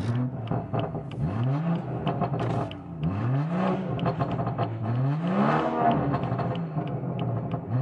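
A 2019 BMW 340i's JB4-tuned turbocharged 3.0-litre inline-six, revved while standing in neutral, heard from inside the cabin. Three revs each rise in pitch and fall back toward idle.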